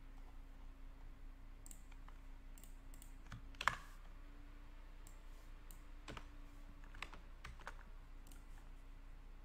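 Faint, scattered clicks of a computer mouse and keyboard, with one louder click about four seconds in, over a steady low hum.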